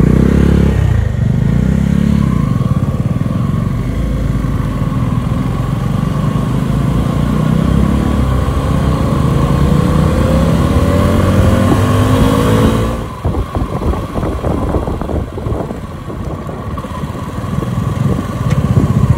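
Motorcycle engine running while riding, its pitch climbing as it accelerates. About thirteen seconds in the revs drop back and separate firing pulses can be heard, and it gets louder again near the end.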